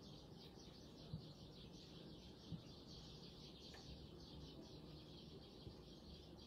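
Near silence: a faint, steady high-pitched chirring in the background, with a few soft taps.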